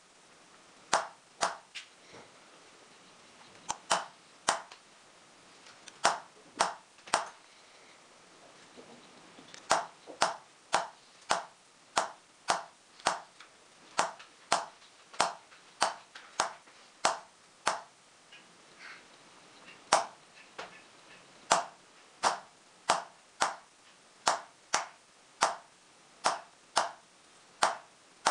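Small hammer tapping a punch into a silver sheet set in chaser's pitch, matting the background of an engraved design. Sharp taps, about two a second, in runs broken by short pauses.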